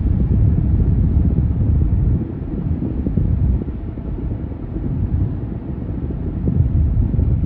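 Low rumble of a car driving at highway speed, heard from inside the cabin: road and wind noise, a little quieter from about two seconds in.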